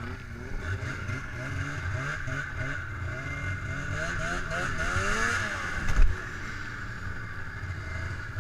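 2002 Arctic Cat ZL snowmobile's two-stroke engine running under throttle, its pitch rising for a couple of seconds and then dropping. A single loud thump about six seconds in, the sled landing from a small jump.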